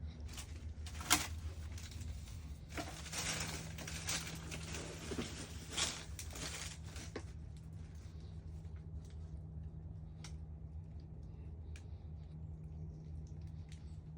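Raccoon rummaging through garbage: rustling, crinkling and clicks, busiest in the first seven seconds with a sharp click about a second in, then only a few faint ticks. A steady low hum runs underneath.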